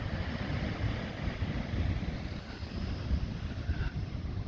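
Wind buffeting the microphone: an uneven low rumble over a steady rushing hiss.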